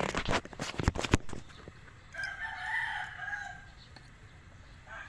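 A quick run of sharp clicks and knocks from handling small parts, then a rooster crowing about two seconds in, with another crow starting near the end.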